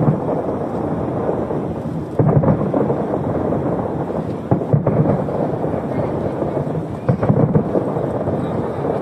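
Fireworks display going off: a series of sharp booms, near the start, about two seconds in, twice just before five seconds and twice around seven seconds, over a continuous rolling rumble of further bursts and their echoes.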